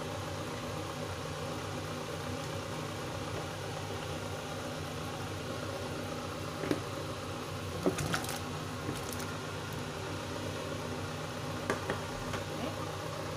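Steady low hum over a boiling soup pot, with a few short knocks and splashes about halfway through and again near the end as chunks of papaya are dropped into the pot.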